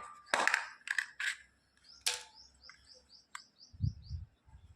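Sharp plastic clicks and scrapes as an LED spotlight's cover is pried loose with a tester screwdriver, with a few low knocks near the end. A bird chirps a quick run of short high notes in the background about two seconds in.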